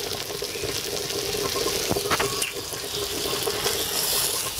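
Meat and vegetables sizzling in oil in a kadai over a wood fire: a steady hiss, with a couple of light clicks about two seconds in.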